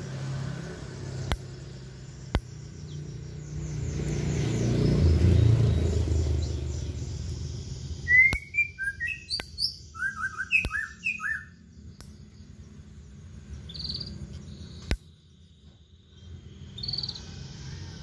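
White-rumped shama (murai batu) singing a short burst of loud, varied whistled notes that slide up and down, followed by a couple of single high calls. Before the song, a low rumble swells and fades in the background.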